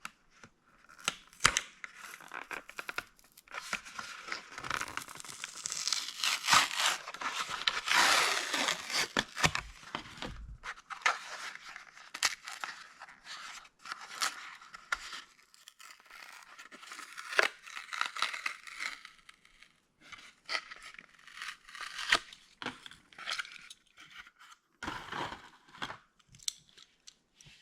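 A toy car's packaging being torn open and handled, with tearing, crinkling and scattered clicks. It is densest for several seconds in the first half, then thins to occasional rustles and clicks.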